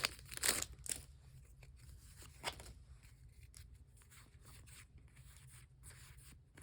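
Foil booster pack wrapper crinkling and tearing open in the first second, then faint rustling and light clicks of trading cards being handled.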